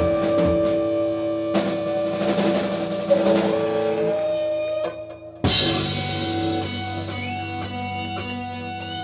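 Live rock band playing guitars, bass and drums on sustained chords with cymbal hits. The sound drops briefly about five seconds in, then a loud final crash comes, and its chord is left ringing and slowly fading.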